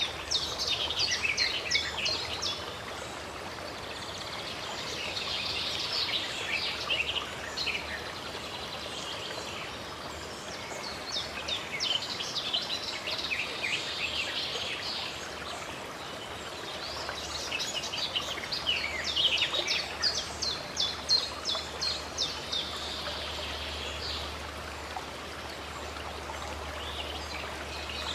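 Steady rush of running stream water with songbirds singing over it in repeated bouts of rapid high chirps and trills.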